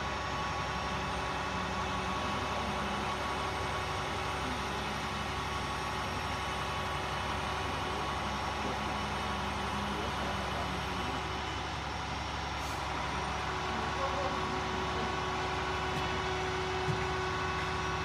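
A crane's engine running steadily during a lift, a constant drone with no change in pace.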